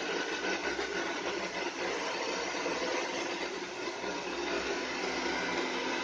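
Chaoba handheld hair dryer running on its cool-air setting: a steady rush of blown air with a faint motor whine underneath.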